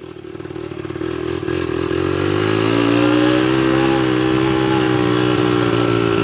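ATV engine picking up speed, growing louder and rising in pitch over the first two or three seconds, then running steadily under throttle.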